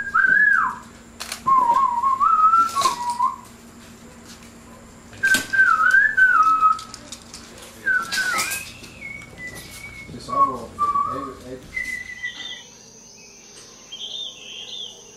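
A person whistling short sliding phrases, with a few sharp knocks between them. About twelve seconds in the whistling stops, and bird chirps sound over a steady high-pitched insect drone.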